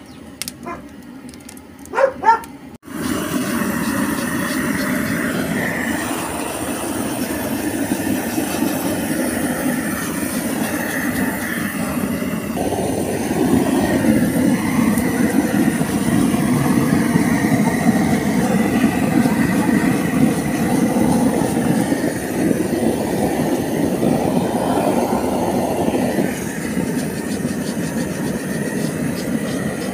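Gas torch burning steadily as it singes the hair off a slaughtered pig's hide; the burner noise cuts in about three seconds in and runs on evenly. Before it, a dog barks twice.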